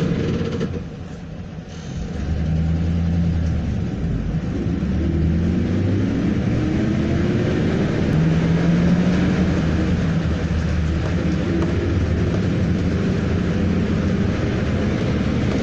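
Ride noise inside a moving city passenger vehicle: a steady low rumble, with a drive whine rising in pitch a few seconds in as it picks up speed.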